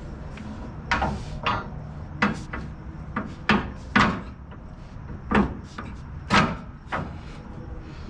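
About eight irregular knocks and clunks from work on a car's front suspension as a lowering coil spring is worked into its lower control arm.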